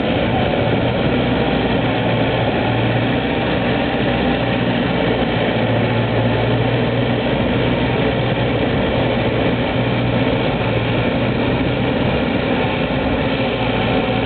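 Diesel engine of a Belarus MTZ 952.3 tractor running at a steady, unchanging speed while ploughing, with a strong low hum.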